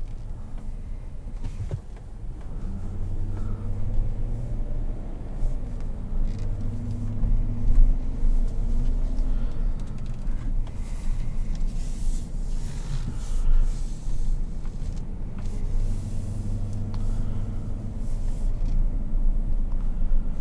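Cabin sound of a 2018 Chevrolet Suburban's 5.3-litre V8 driving slowly: a steady low rumble with a deeper engine hum that swells and fades a few times.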